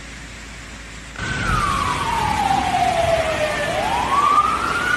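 A steady rush of water, then about a second in a louder siren cuts in, wailing slowly down in pitch, back up and starting down again.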